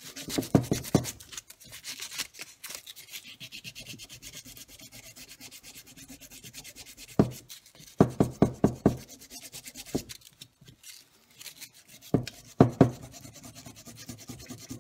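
Sandpaper rubbed by hand over cured JB Weld epoxy on the plastic rim of a Plymouth two-spoke steering wheel, in runs of quick back-and-forth strokes with pauses between. The excess filler over a repaired crack is being sanded down and feathered into the plastic.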